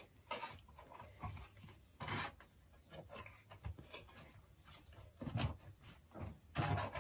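A green plastic scoop scraping cassava ugali out of a metal cooking pot: a series of short, irregular scrapes, with a stronger cluster near the end.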